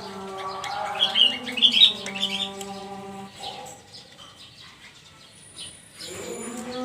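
Birds chirping, loudest about one to two seconds in, over a held melodic tone like chanting or singing that changes pitch in steps. The tone fades out partway through and returns near the end.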